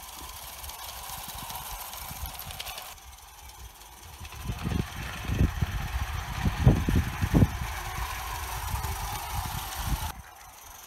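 Bassett-Lowke Enterprise live-steam 0 gauge locomotive running with a short train of Hornby tinplate goods wagons on garden track. Irregular low rumbling thumps from about four to eight seconds in are the loudest sound.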